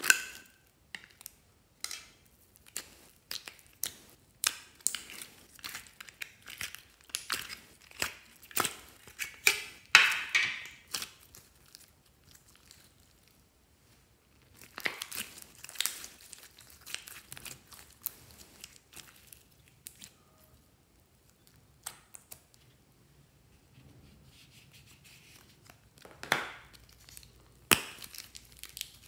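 Slime being pulled out of and squeezed from thin plastic toy-shaped containers: quick crackling, crinkling and sticky clicking. The sound runs in dense spells and stops for a few seconds near the middle.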